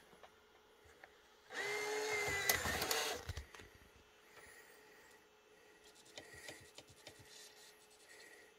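A small electric motor, like a power tool's, runs for about a second and a half with a steady whine, followed by faint clicks and light handling sounds.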